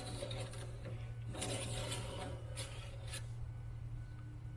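Engine oil dipstick being drawn out of its tube and wiped, a few short rubbing and scraping sounds over a steady low hum.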